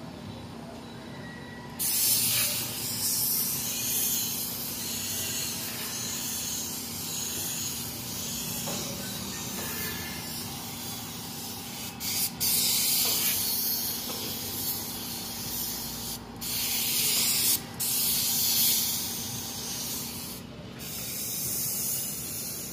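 Compressed-air gravity-feed paint spray gun hissing as it sprays car body panels, starting about two seconds in and running in long passes broken by a few brief stops where the trigger is released. A steady low hum runs underneath.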